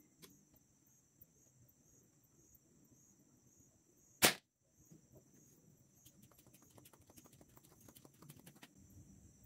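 One shot from a TAG Naja 2.0 5.5 mm air rifle, a single sharp crack about four seconds in, followed later by a run of faint quick clicks that fade out near the end.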